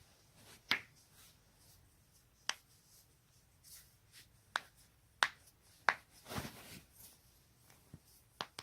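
Joints being cracked: six sharp, separate pops spread unevenly over several seconds, with a brief rustle of movement between two of them.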